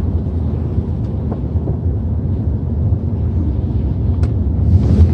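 Pickup truck driving along: a steady low rumble of engine and road noise.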